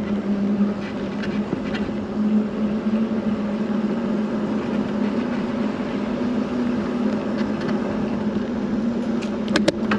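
Vehicle driving slowly, heard from inside the cabin: a steady engine hum over road noise, with a couple of sharp clicks near the end.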